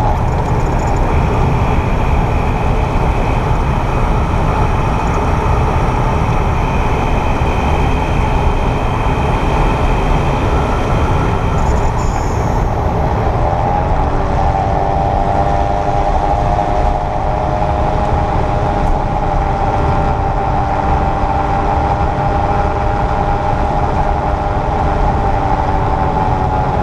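2022 Kia EV6 driving with steady road noise and a mechanical buzzing whir from the front drivetrain, its pitch rising about halfway through, holding steady, then dipping near the end as speed changes. The owner hears this whir only in Eco and Normal mode around 28–30 mph, and it goes away when the front motor is engaged.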